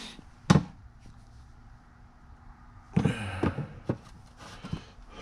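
Sharp knocks and clatter of hard objects being handled and set down: one sharp knock about half a second in, then a quick cluster of knocks about three seconds in and another near the end.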